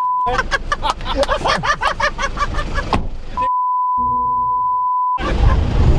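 Talking over car noise, cut twice by a steady 1 kHz censor bleep: a short one at the start and a longer one of nearly two seconds past the middle, during which all other sound is muted. In the last second a loud car engine and driving rumble take over.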